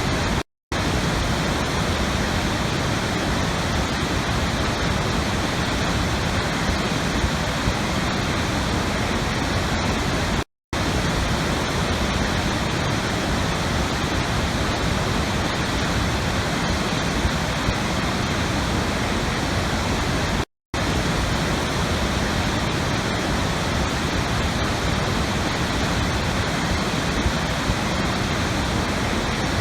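Steady, even rush of flowing water, like a waterfall or fast stream. It drops out completely for an instant about every ten seconds, three times here, as a short recording loops.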